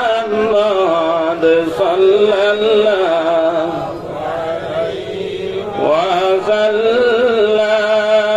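A man chanting a salawat (a blessing on the Prophet) in long, wavering held notes with melodic bends. It softens around four to five seconds in, then a new phrase slides up in pitch and is held.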